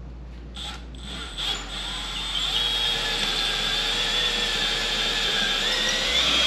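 Cordless drill boring a pilot hole into the wall for a lag bolt. A couple of clicks come first, then the motor's whine starts about a second and a half in and runs steadily, growing a little louder toward the end.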